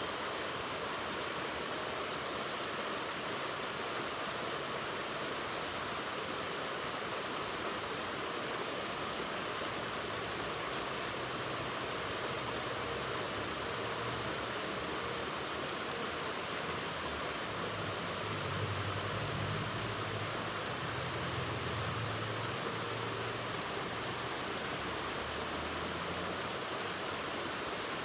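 Waterfall: an even, unbroken rush of falling water, with a slightly deeper rumble swelling for a few seconds past the middle.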